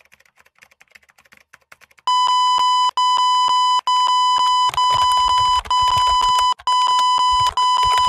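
Faint clicking of laptop keys being typed, then from about two seconds in a loud, steady, high electronic beep repeated about once a second, roughly eight beeps with short gaps between them, over the continued key clicks.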